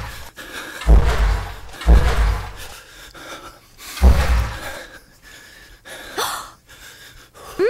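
Heavy, gasping breathing close to the microphone, broken by three dull thumps as the camera is knocked about during rough play.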